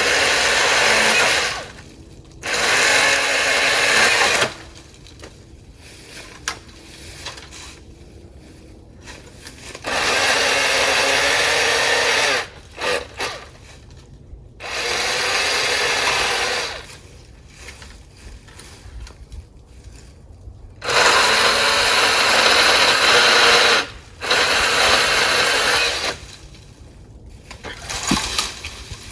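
Milwaukee M18 18-volt battery-powered chain pole saw running in repeated bursts of a few seconds each, about six times, with short pauses between them, as it cuts through cedar limbs.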